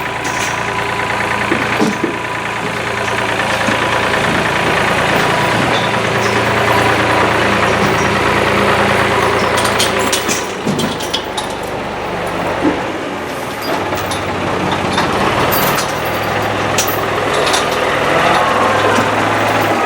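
Case tractor engine running steadily, its pitch shifting a little, with a few sharp clanks and rattles about halfway through and again near the end.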